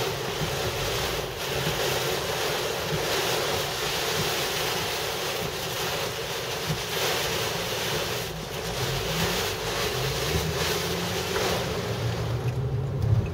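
Heavy rain and wind beating on a car, heard from inside the cabin: a steady, dense rush of rain on the roof and windshield.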